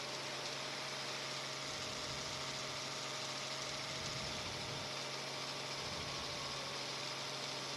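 News helicopter's engine and rotor noise, a constant drone with a steady whine over a hiss.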